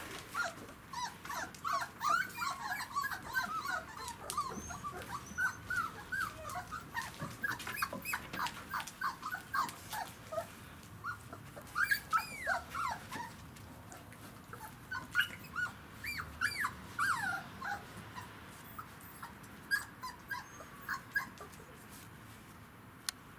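Siberian husky puppies, about three and a half weeks old, whimpering and squeaking in many short, high cries. The cries come thick and fast for the first ten seconds or so, then in scattered bursts that thin out near the end.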